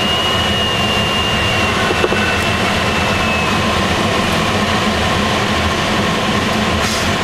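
Steady rushing airflow inside the canopy of a Swift aerobatic glider in gliding flight, with a deep rumble under it. A thin high tone slowly drops in pitch and fades out a few seconds in.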